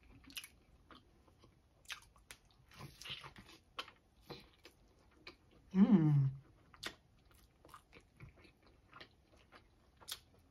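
Biting and chewing a crispy fried birria taco: scattered crunches and wet mouth clicks. About six seconds in comes a short hum of enjoyment that falls in pitch, the loudest sound.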